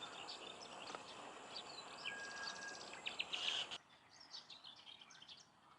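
Small birds chirping and singing in quick short calls and trills, over a steady background hiss that drops away suddenly about two-thirds of the way through, leaving the birdsong clearer.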